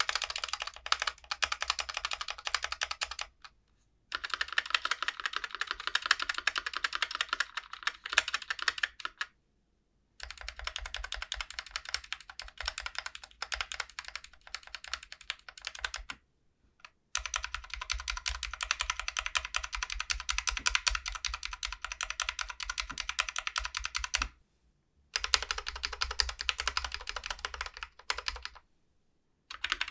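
Stabilized keys on a GMMK Pro keyboard, left Shift among them, pressed over and over in quick runs of several seconds broken by short silent gaps. They sit on Glorious GOAT stabilizers, stock and then lubed with Krytox 205g0 near the end, under ABS keycaps and lubed NK Cream linear switches. The reviewer finds these stabilizers always sound a little off, however much they are lubed.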